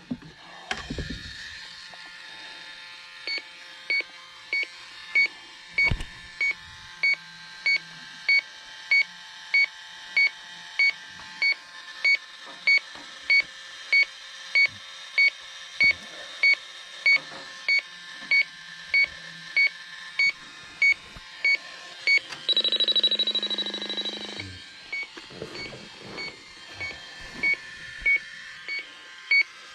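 Electronic refrigerant leak detector beeping steadily, about one and a half to two beeps a second, as it is worked along the lines in a leak search. About two-thirds of the way through the beeps give way to a louder steady high tone for a second or two, then the beeping resumes.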